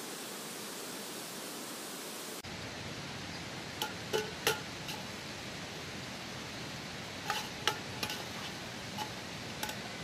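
Steady rushing of a nearby stream, with a series of light ringing clinks of kitchenware being handled, in two clusters about four and seven seconds in.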